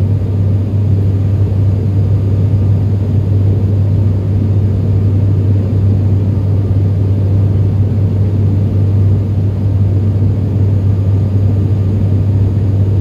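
Cabin noise inside an ATR 72-500 turboprop airliner in flight: a steady drone from its Pratt & Whitney PW127 engines and six-bladed propellers. A strong, unchanging low propeller hum sits over a steady rushing noise.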